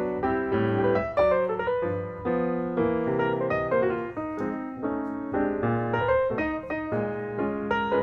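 Background piano music: a melody with chords, notes struck in a steady rhythm.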